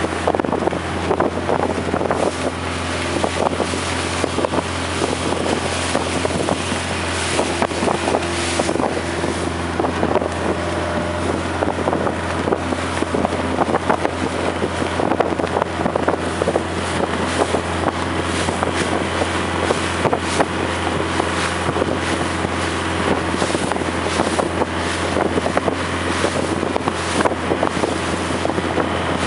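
Longtail boat engine running steadily under way, heard from on board, with wind buffeting the microphone.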